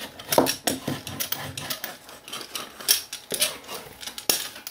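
A paint-loaded hand brayer rolled along the edges of a canvas, with a string of irregular clicks and rubbing scrapes as the roller and canvas are handled.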